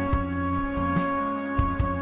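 Background music: a long held note over a few soft, low beats.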